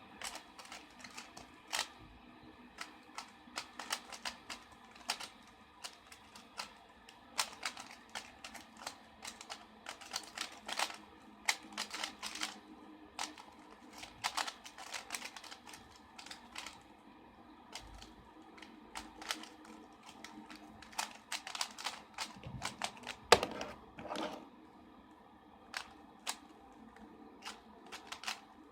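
Plastic puzzle cubes being turned fast by hand: irregular clicking and clacking, several clicks a second in flurries, with a few louder knocks as cubes are handled.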